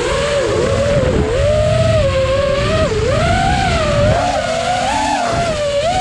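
FPV quadcopter's electric motors and propellers whining, the pitch swooping up and down as the throttle changes, over a low rumble.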